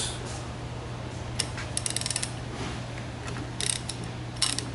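Ratchet wrench clicking in short runs of quick clicks as it is swung back and forth, loosening flange bolts, over a steady low hum.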